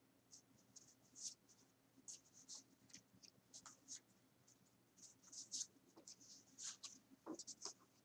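Faint rustling and scraping of paper squares being handled and slid onto a card on a cardboard surface, in many short, soft brushes scattered through.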